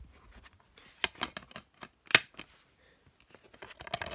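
Plastic DVD case being handled: scattered clicks and taps, one sharper click about two seconds in, and a quick run of small clicks near the end.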